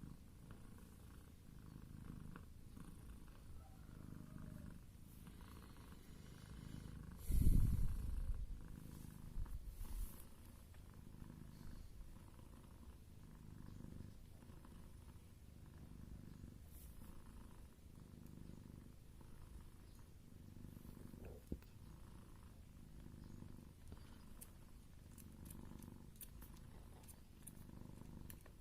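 Mother cat purring steadily in low pulses, with one brief, louder knock and rustle about seven seconds in.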